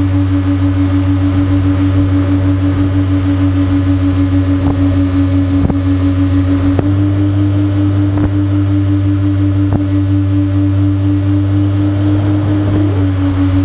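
Twin electric motors and propellers of a Multiplex TwinStar RC plane droning steadily in flight, picked up by a camera on the plane with wind rush. The motor note steps up slightly about seven seconds in and drops back near the end, with a few brief clicks.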